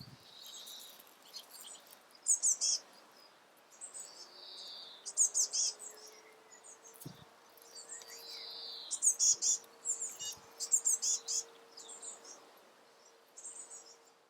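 Great spotted woodpecker fledgling calling: repeated bursts of rapid, very high-pitched notes every second or two, the begging calls of a juvenile being fed by its parent.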